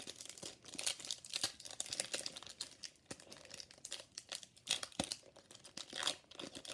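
Foil trading-card booster pack wrapper being crinkled and torn open: a string of irregular crackles and rustles.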